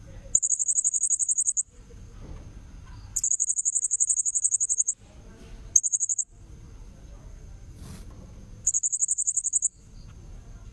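Blue-crowned hanging parrot (serindit) lure call: four bursts of rapid, shrill, high-pitched chittering, each from half a second to nearly two seconds long, over a faint steady high tone.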